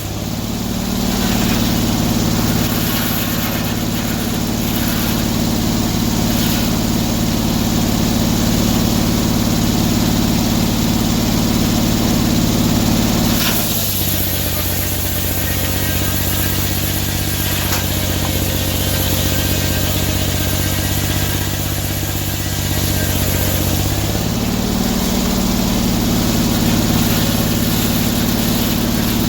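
Sawmill engine running steadily. Its pitch drops about halfway through and rises back up near the end.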